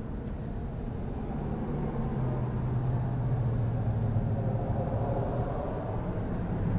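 A motor vehicle's engine running, a steady low hum that slowly drops a little in pitch, over general traffic noise.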